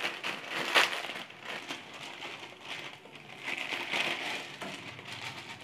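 Plastic Maggi instant-noodle packets crinkling as they are torn open and emptied, the dry noodle blocks being pulled out into the pan. The rustling is irregular, heaviest about a second in and again around four seconds in.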